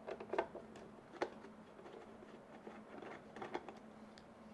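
Faint, scattered clicks of a screwdriver turning screws out of a 3D printer's plastic bottom panel, over a faint steady hum.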